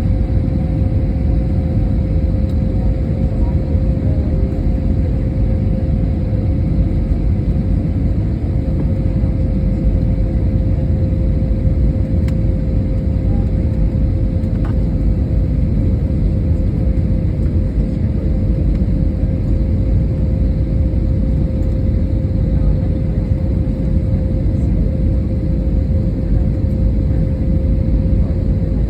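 Steady cabin noise of an Airbus A320neo: a continuous low rumble of engines and airflow with a steady mid-pitched hum on top, unchanging throughout with no thumps or surges.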